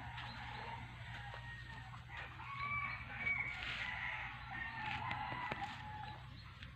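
A rooster crowing faintly, a few drawn-out calls, over a steady low background hum.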